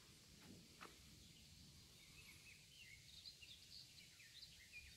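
Faint small songbird chirping: a quick run of short, high chirps starting about two seconds in, over a low steady rumble.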